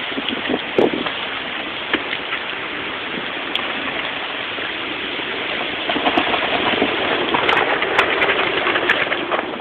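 Steady rain from Hurricane Irene as the storm begins, an even hiss with scattered sharp drop hits, getting louder about six seconds in.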